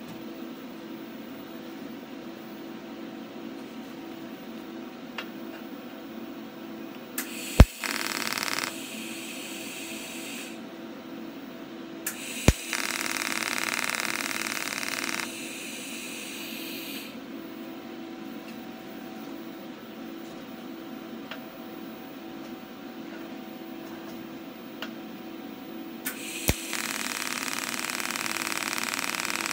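TIG welder arc on steel: three short welds, each starting with a sharp crack as the arc strikes, then a steady hiss of one and a half to three seconds before it cuts off. A steady hum runs underneath.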